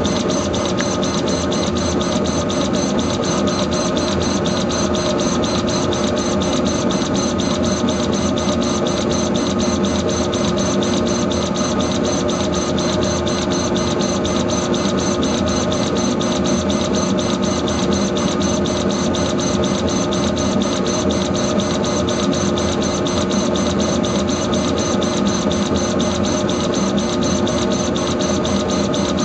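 Laser engraver running while it engraves an anodized aluminum business card: a steady machine whine with several held tones over a hiss, with a fast, even buzz as the head rasters across the card.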